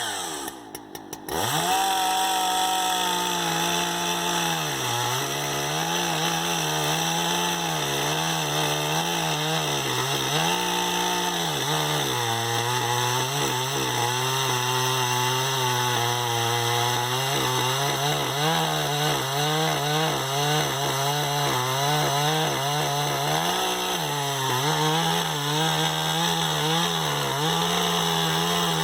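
A two-stroke chainsaw, the Swedish-made replacement for the Yuzhoukee, comes up to speed about a second and a half in. It then runs hard, its engine pitch dipping and recovering over and over.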